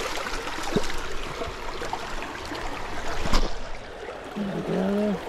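Shallow creek water running and trickling over rocks around the wader's feet. There is a single knock about three seconds in, and a short low hum from a person's voice near the end.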